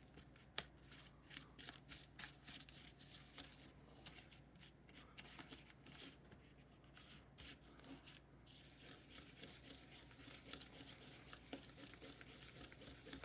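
Faint scraping and clicking of a small plastic spoon stirring and mashing a thick dough mix in a plastic tray to break up lumps, with one sharper click just after the start.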